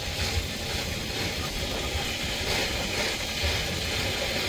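A boat's motor running under power, with a steady rushing noise and an uneven low rumble.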